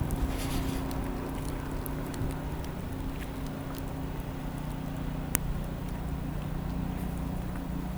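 A motor engine running steadily as a low, even drone, with a single sharp click about five seconds in.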